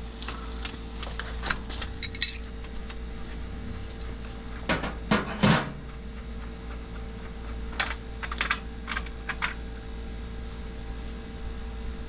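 Light clicks and taps of copper refrigerant tubing and brass flare-nut fittings being handled by hand, with a louder burst of handling noise about five seconds in. A faint steady hum runs underneath.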